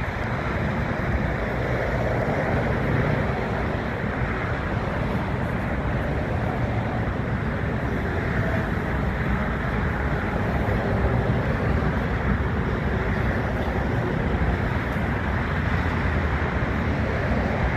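Steady rumble of airport background noise from distant aircraft and ground traffic, even throughout with no distinct events.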